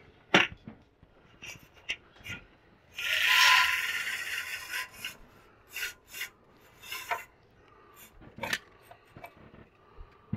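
Metal-slat window blind being let down on its cord: the slats slide and rattle down for about a second and a half, with a faint metallic ring. Scattered clicks of slats and cord come before and after.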